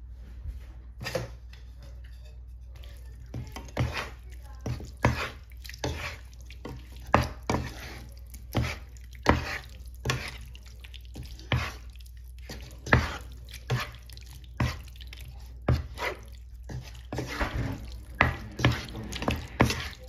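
Wooden spatula tossing sliced grilled beef in its dressing in a pan: a string of wet slapping strokes with knocks of the spatula on the pan, about one a second, coming faster near the end.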